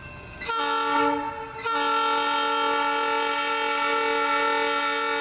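Diesel locomotive's multi-note air horn sounding for a road grade crossing: a blast starting about half a second in, a brief dip about a second later, then one long held blast.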